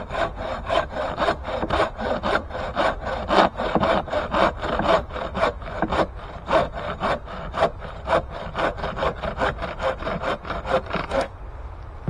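Hand saw cutting through dense hardwood in quick back-and-forth strokes, about three or four a second, stopping abruptly near the end.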